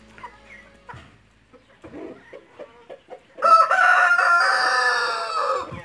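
A rooster crows once, starting about three and a half seconds in: a long, loud call that falls in pitch at its end. Before it, chickens cluck softly.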